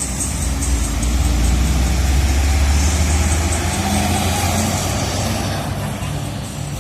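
Heavy road vehicle's engine rumbling as it passes close by in traffic, swelling over the first couple of seconds and fading after about five seconds.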